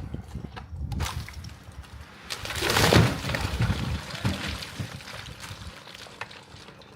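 A felled tree crashing down through branches and hitting the ground, the crash swelling and peaking about three seconds in, with smaller cracks of breaking wood around it.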